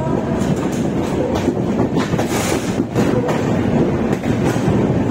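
Swarna Shatabdi Express train running on the track: a steady rumble of wheels with irregular sharp clicks as the wheels cross rail joints.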